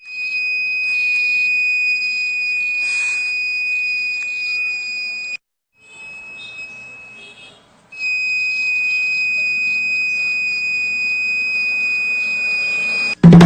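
Fire alarm model's electronic buzzer sounding a continuous high-pitched tone: the alarm going off. It cuts out suddenly about five seconds in, is heard only faintly and in snatches for a couple of seconds, then comes back steady until just before the end.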